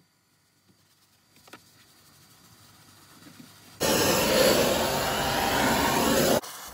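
Near silence, then a loud, steady rush of air from a cleaning tool starts suddenly about four seconds in, runs for about two and a half seconds and cuts off abruptly.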